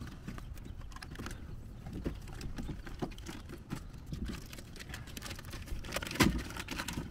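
Peeling the backing off a sheet of sound-deadening material and handling it against a car door's inner panel: irregular soft rustling and small clicks, with one sharper knock about six seconds in.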